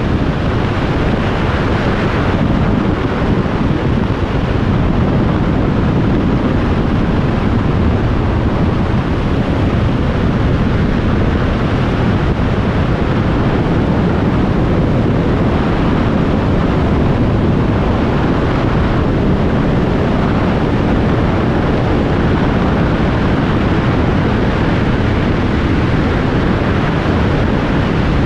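Steady wind rush on the microphone of a Kawasaki Z1000SX riding at a steady motorway speed, with the motorcycle's running and road noise underneath. The pitch does not rise or fall, so the bike is cruising, not accelerating.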